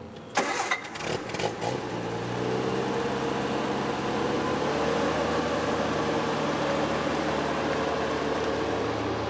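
MG Midget's four-cylinder engine being started: a quick run of clicks and knocks from the starter, the engine catching about two seconds in, then running steadily.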